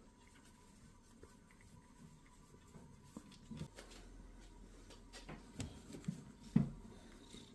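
A few faint, soft knocks and taps, scattered over the second half, with the loudest knock about two-thirds of the way through.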